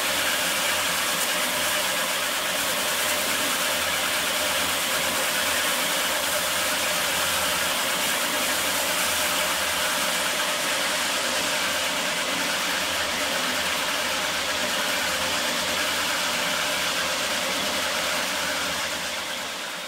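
Steady mechanical running noise: a broad hiss over a pulsing low rumble, fading near the end.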